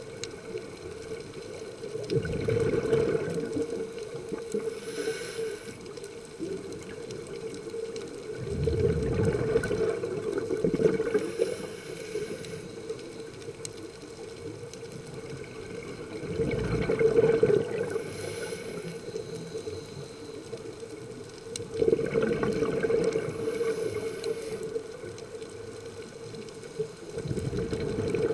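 Scuba breathing heard underwater through a regulator: a bubbling rush of exhaled air about every five to six seconds, with a fainter hiss of each inhalation between.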